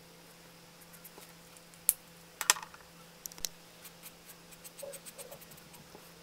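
Two sharp clicks as markers are swapped, then a run of light, quick ticks and scratches of a felt-tip marker dabbing and stroking on sketchbook paper.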